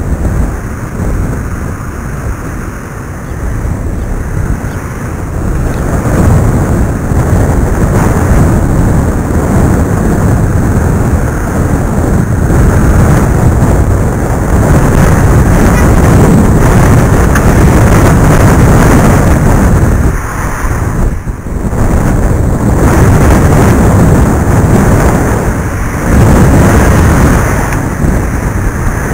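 Heavy, uneven wind rush from air blowing over the microphone of head-worn video glasses while cycling, mostly deep in tone. It drops away briefly about two-thirds of the way through, then comes back.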